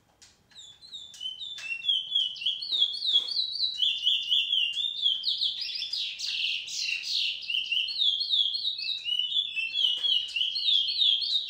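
Caged chestnut-bellied seed finch (picolet, curió) singing a long, unbroken song of quick repeated high chirps and warbles. It starts faintly right at the beginning and grows louder within the first two seconds.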